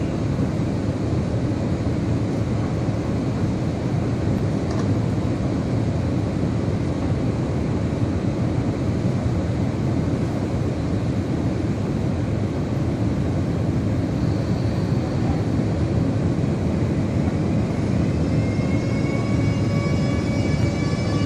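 PKP Intercity Siemens Taurus electric locomotive standing at the platform with a steady low hum and rumble from its running equipment. About 18 s in, its traction converter starts up as the locomotive sets off, giving a whine of several tones that rise together and then hold.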